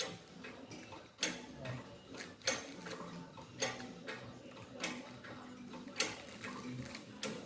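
Hydraulic engine crane being hand-pumped to lift a Chevrolet Cruze 1.8 Ecotec engine out of the bay: a sharp metallic click with each pump stroke, evenly about once every 1.2 seconds, with lighter rattling between.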